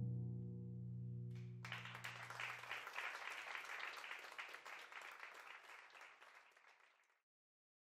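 A held musical chord dies away over the first few seconds while audience applause starts about a second and a half in, then fades steadily to silence about seven seconds in.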